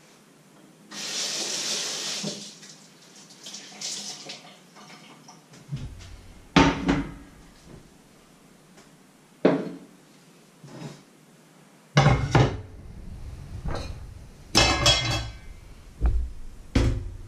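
Kitchen handling sounds: water runs briefly about a second in, then come scattered knocks and clinks of a glass and dishes set down on a wooden counter, several of them sharp and loud.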